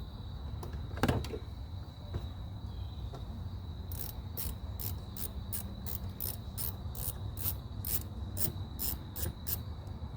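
Hand socket ratchet clicking in an even rhythm, about three clicks a second for several seconds, as a bolt is turned out, with a knock about a second in and a steady high tone underneath.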